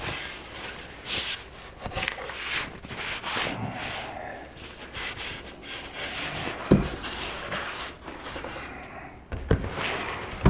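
Paper towel rubbing oil over a hardwood cutting board, a steady scratchy wiping, broken by a few sharp knocks as the board is turned and set down on the counter, two of them, well apart, in the second half.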